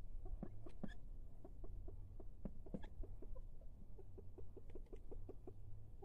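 Domestic ducks making short, quiet quacking calls in quick runs, a few a second, thickest past the middle.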